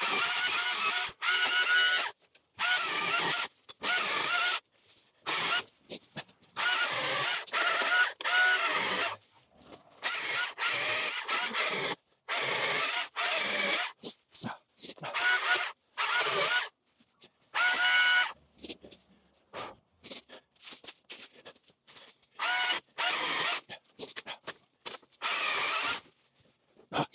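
Battery-powered Greenworks cutting tool's electric motor triggered in many short bursts, about twenty of them, each spinning up with a whine and stopping within a second or so, as it cuts back holly branches.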